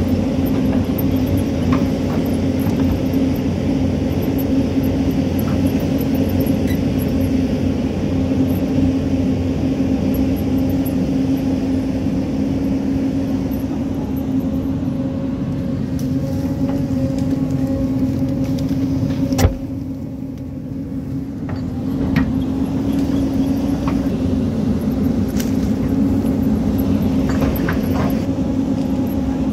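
Hyundai hydraulic excavator's diesel engine running steadily at a constant pitch as the bucket digs into the hillside, with scattered small clicks and knocks of stones and bucket. One sharp knock comes about two-thirds through, after which the engine sound drops off for a couple of seconds and then picks up again.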